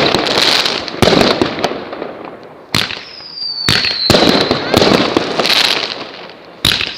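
Fireworks going off: several loud bangs a second or two apart, each trailing into crackling, with a whistling rocket whose whistle falls slowly in pitch about three seconds in.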